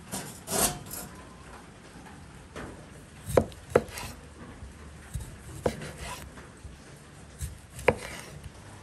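Kitchen knife cutting food on a wooden board: scraping in the first second, then a few sharp, separate knocks a second or two apart.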